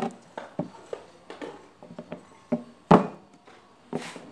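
A two-part split mold being handled on a wooden workbench: a string of short knocks and clacks as it is turned over and set against the bench, the loudest about three seconds in.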